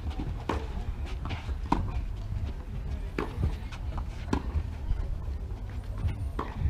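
Tennis ball struck back and forth in a rally on a clay court: about five crisp racket hits, spaced one to two seconds apart, over a steady low rumble.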